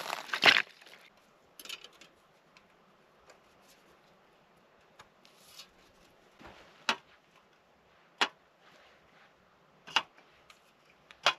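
Camping gear being handled while a camp is set up: a rustle and knock near the start, then a few separate sharp clicks and knocks spaced a second or more apart.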